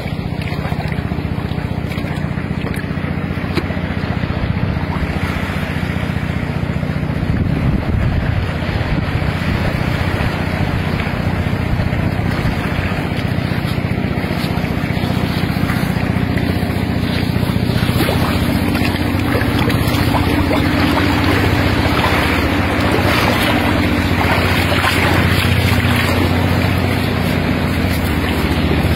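Steady low drone under wind and water noise, growing a little louder toward the end.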